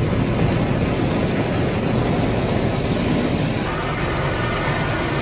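Automatic car wash heard from inside the car: water jets spraying and drumming on the windshield and body while the rotating wash brushes scrub across the glass, a loud steady rush of water with a slight change in its sound a little past halfway.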